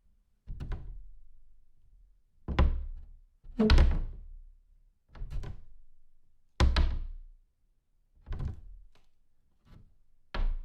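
A door being shut again and again: about nine separate closes, each a sudden thud that dies away within a second, at uneven intervals. Some are harder than others, the loudest near the middle.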